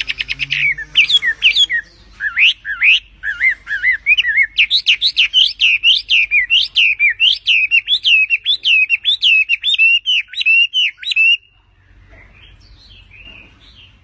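Hwamei (Chinese hwamei) singing: a fast run of short notes, then a long series of loud, repeated whistled notes that swoop up and down, about two a second, stopping abruptly near the end.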